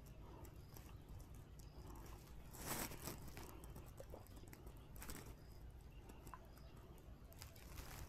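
Near silence with faint rustling and a few soft clicks; the most noticeable are two brief rustles, about three seconds in and about five seconds in.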